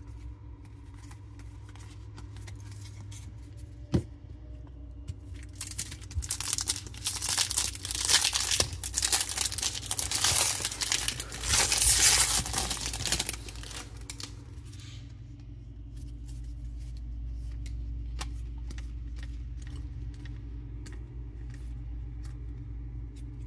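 A Topps Series 1 baseball card pack wrapper being torn open and crinkled by hand, loudest from about six to fourteen seconds in. This is followed by light clicks of the cards being handled.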